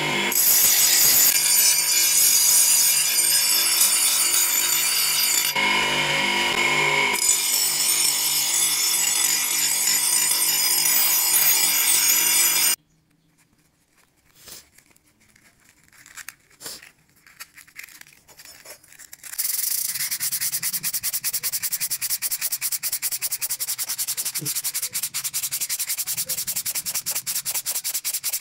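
A power grinder runs against the steel cleaver blade with a steady motor tone under its grinding noise, then stops abruptly about halfway through. After a few seconds of faint scraping, sandpaper is rubbed fast back and forth over the blade by hand as a steady rhythmic scratching.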